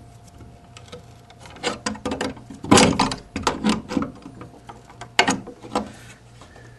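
Pliers crimping the metal tabs of a low-voltage mounting bracket (MP1) to clamp it tight in the wall: a series of irregular metallic clicks and creaks, loudest about three seconds in.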